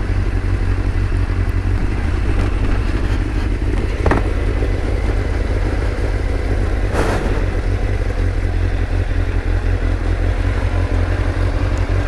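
Motorcycle engine running steadily under way, with heavy wind and road noise. There is a brief click about four seconds in and a short rush of noise about seven seconds in.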